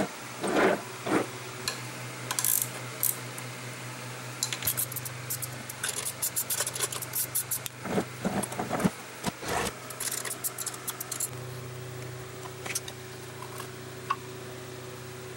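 Scattered light metallic clinks and rattles, thickest in the middle few seconds, over the steady hum of a shop fan.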